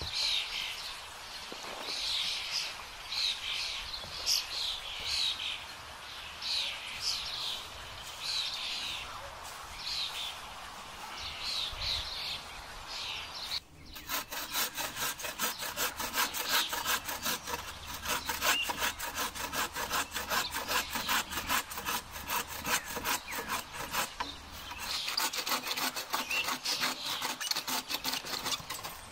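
Bow saw cutting through a fallen branch in repeated back-and-forth strokes, faster and denser for a stretch in the middle.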